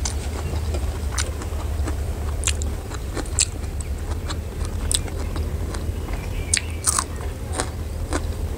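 Close-up mouth sounds of a person chewing rice and curry: wet lip smacks and sharp clicks at irregular moments, over a steady low hum.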